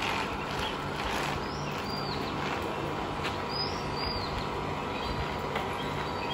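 Steady rolling and wind noise of a tandem bicycle being ridden, with short bird chirps twice, about two and four seconds in.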